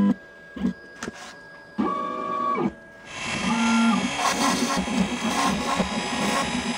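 ShopBot desktop CNC router: its stepper motors whine in short moves, the pitch ramping up and down at the start and end of each move as the gantry positions the V-bit. About three seconds in, the router motor spins up and runs loudly with the steppers still whining underneath, as the V-bit carves the pink foam insulation board.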